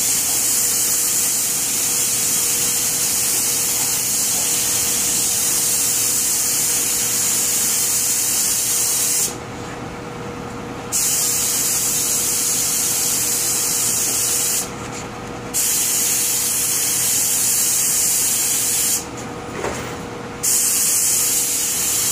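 Compressed-air paint spray gun with a siphon cup hissing steadily as paint is sprayed onto wicker furniture. The spray cuts off three times for a second or so when the trigger is let go, then starts again.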